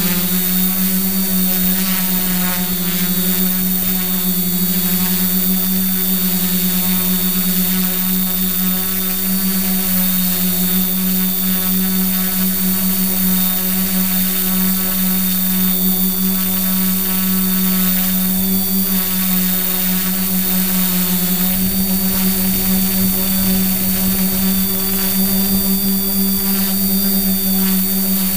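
Quadcopter's electric motors and carbon-fibre propellers running steadily in flight, heard close up from the camera on the craft: one steady hum with a thin high whine above it. A low rumble joins about three quarters of the way through.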